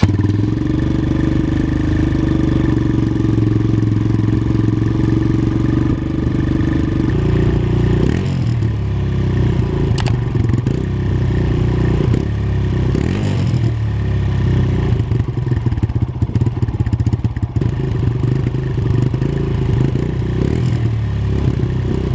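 2018 Kawasaki KLX140L's single-cylinder four-stroke engine running through its stock exhaust: idling steadily for about seven seconds, then revved repeatedly in short blips.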